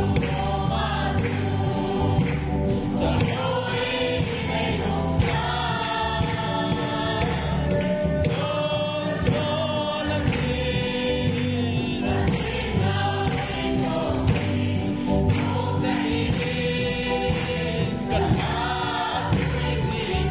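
A congregation singing a gospel hymn together over amplified keyboard accompaniment with a steady bass line.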